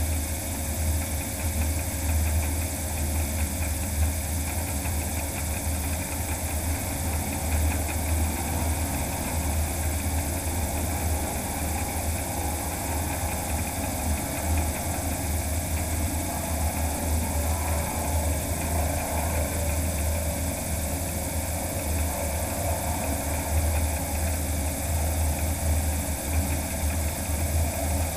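All-electric DHC-2 Beaver floatplane taxiing on the water, heard close up from under the wing: the propeller, driven by a magniX magni500 electric motor, runs steadily while water rushes past the floats, over a constant low rumble.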